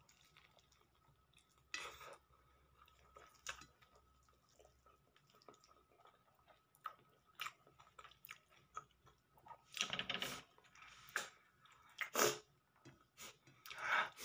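Close-up eating sounds of someone biting and chewing fried chicken wings: irregular short crunches and wet mouth smacks, sparse at first and coming thicker and louder in the last few seconds.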